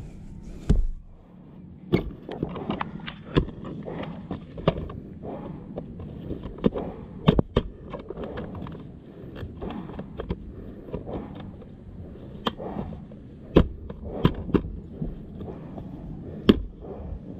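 Irregular knocks and clatter with scuffing as a Honda CRF dirt bike is gripped and hauled by its plastic shroud, with boots shifting on dirt and grass; a few sharp knocks stand out, the first under a second in.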